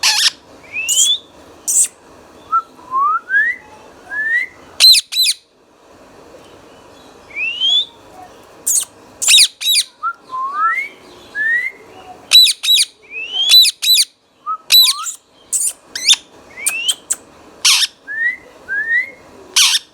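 Indian ringneck parakeet calling repeatedly: loud, sharp screeches alternating with short rising whistles.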